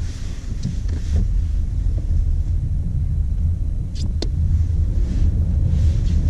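Low steady rumble of a BMW F20 116i driving slowly, heard from inside the cabin, with two short clicks about four seconds in.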